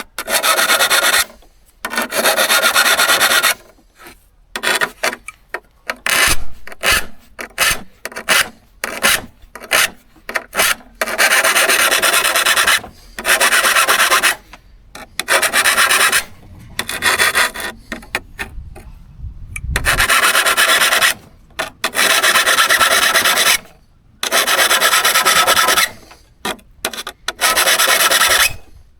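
Hand strokes of an abrasive or file against a steel hand-saw blade, each long stroke lasting a second or two with short pauses between. A run of short, quick strokes comes between about four and eleven seconds in.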